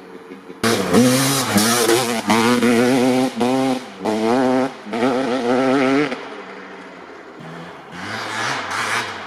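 1995 Honda CR250R's 250cc two-stroke engine, breathing through a Pro Circuit R-304 shorty silencer, revving hard in repeated bursts of throttle with short gaps between them as the dirt bike accelerates. It starts about half a second in and drops off after about six seconds. The revs rise again near the end.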